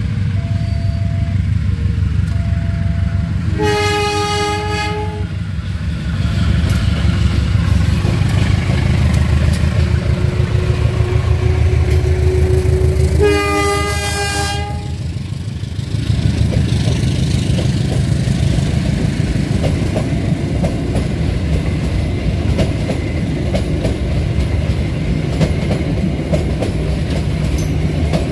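GE U20C-type CC203 diesel-electric locomotive passing at speed with a steady engine rumble, sounding its multi-note horn in two blasts about nine seconds apart, each about a second and a half long. After the second blast, the carriages' wheels click rhythmically over the rail joints.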